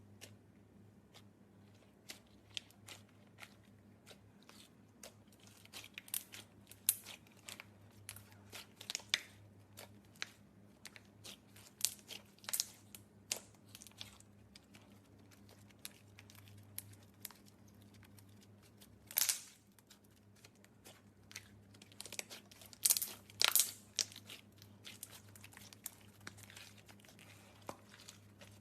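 Slime being handled by hand, making irregular sticky clicks and short crackling pops, a few of them louder and longer, over a faint steady low hum.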